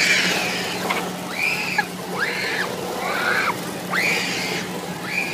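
Riders on a spinning carnival thrill ride screaming over and over, about six short high cries that each rise and fall in pitch, over the steady low hum of the ride's machinery.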